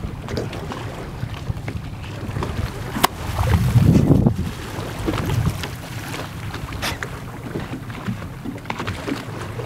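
Steady low hum of a boat on open water, with wind buffeting the microphone and small splashes. A louder rush of noise comes about three and a half seconds in and lasts under a second.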